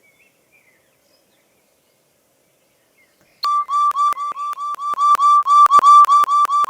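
Near silence, then about three and a half seconds in a rapid string of short, high whistle-like beeps starts abruptly, about five a second, each on the same steady pitch with a click at its onset.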